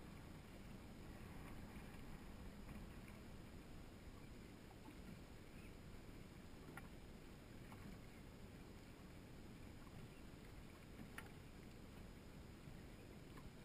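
Near silence: a faint low wash of wind and water around a small boat, with a few faint clicks.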